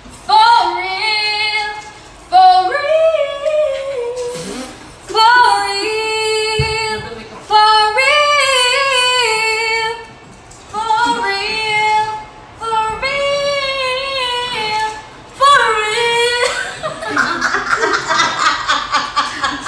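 Young women singing unaccompanied, one short, high phrase after another, about seven in all, each ending on a held note. Near the end the voices turn rougher and more jumbled.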